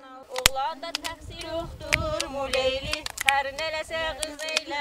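Women singing a slow song with long held, wavering notes. Several sharp clicks of pruning shears snipping grapevine cuttings are heard now and then.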